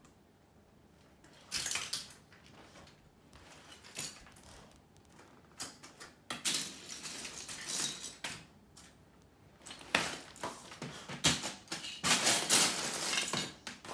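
Dog digging through a plastic bin full of LEGO bricks with its paw and snout to get at a buried bone, the loose bricks clattering and rattling in several bouts of a second or two. The bouts are loudest near the end.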